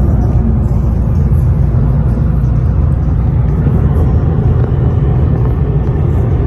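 Steady low rumble inside a Ford Mustang's cabin cruising at highway speed: engine, exhaust and tyre noise blended together.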